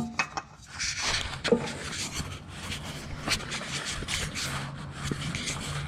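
Scraping and rubbing with scattered small clicks as an oil filter is turned by hand onto its threaded mount under the car.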